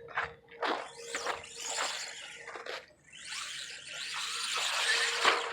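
Redcat Volcano RC monster truck driving over rough ground: a series of short crunching, scrabbling tyre-and-chassis noises, then a longer rising rush as it runs flat out from about three seconds in, cutting off sharply near the end.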